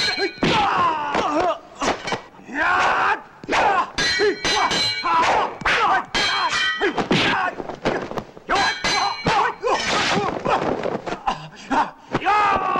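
Kung fu film fight sound effects: a rapid series of sharp hits and metallic sword clashes, several of them ringing briefly, with shouts and grunts from the fighters between them.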